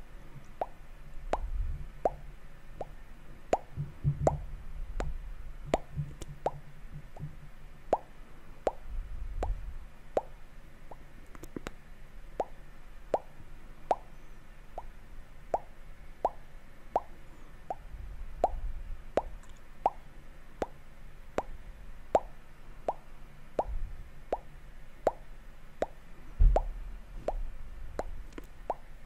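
Wet mouth sounds close to the microphone: short, evenly paced pops, about three every two seconds, with a few low muffled bumps between them and a louder thump near the end.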